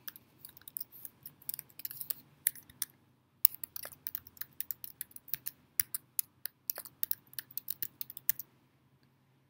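Typing on a computer keyboard: quick, irregular keystrokes with a short pause about three seconds in, stopping about a second before the end.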